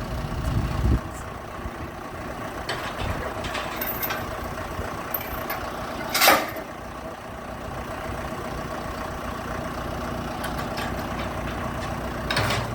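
Heavy diesel engine of a large John Deere machine running steadily at idle, with a brief loud burst of noise about six seconds in and a smaller one near the end.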